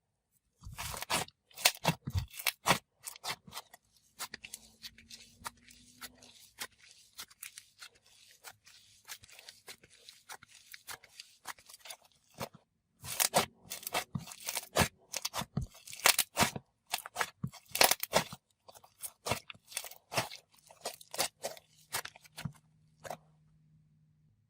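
Snowfish slime with clay mixed in, worked by hand, giving dense crackling sizzles and sharp pops. It goes quieter for several seconds early on, then crackles more loudly, and stops about a second before the end.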